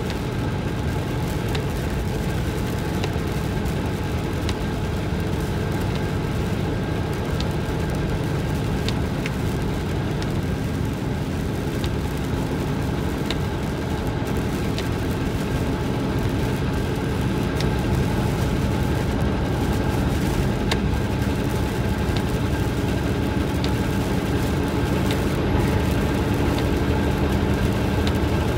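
Steady road noise inside a moving car: engine and tyres on a wet road, with scattered faint ticks.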